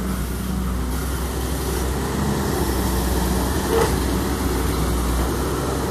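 Excavator's diesel engine running steadily, with one short knock about four seconds in.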